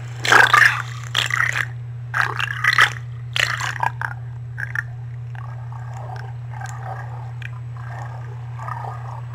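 Rough scraping and crunching knocks against an underwater camera, in several loud bursts over the first four seconds, then fainter muffled noises, over a steady low hum.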